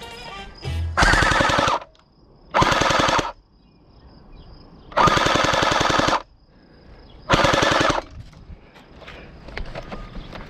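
Gel blaster firing on full auto in four short bursts, each a second or less, with brief pauses between them.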